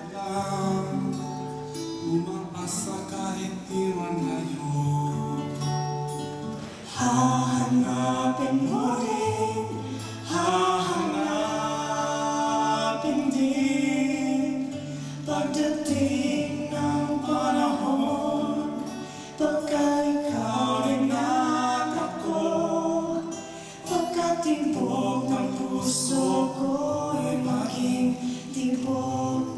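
Two acoustic guitars playing, with a man and a woman singing together over them.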